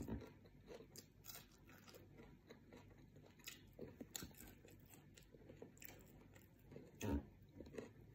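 Faint close-up chewing with small crunches as a person eats fried anchovies and fried rice by hand, one louder crunch about seven seconds in.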